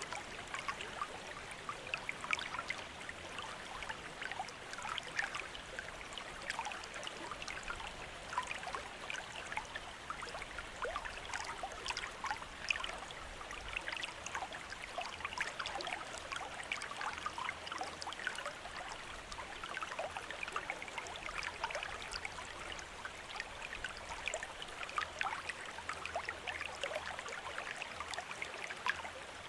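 Water from a bamboo fountain trickling and splashing steadily, a dense, irregular patter of small splashes.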